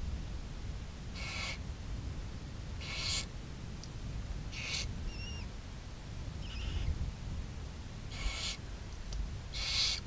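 Barn owls in a nest box giving five short hissing calls a second or two apart, with two faint thin chirps between them, during feeding of the chicks, over a steady low rumble.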